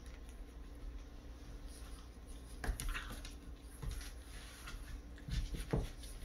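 A boxer puppy and another dog play-wrestling on a rug: faint scuffling of paws and bodies, with a few sharper knocks and thumps about halfway through and near the end.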